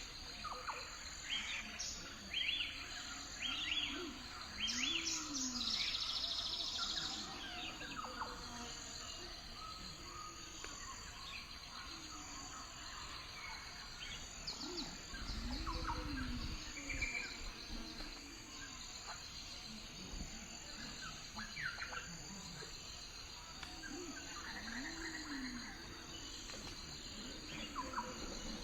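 Lakeside nature ambience: a steady high-pitched insect chorus, with scattered bird chirps and, every few seconds, a low call that rises and falls.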